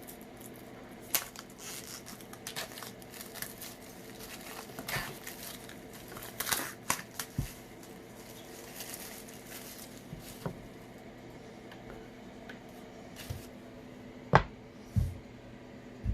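Phone packaging being handled and opened: rustling, tearing and crinkling with scattered small clicks, then two louder knocks near the end as the box or its contents are set down.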